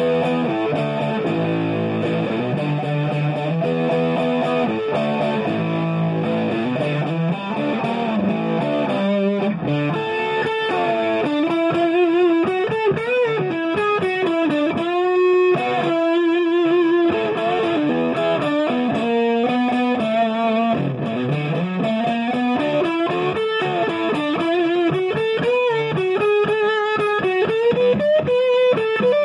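Electric guitar played through a JL Udo Fuzz pedal that is switched on, giving a distorted fuzz tone. It opens with a repeated low riff, then about nine seconds in moves to single-note lead lines with string bends and vibrato, holding some notes long.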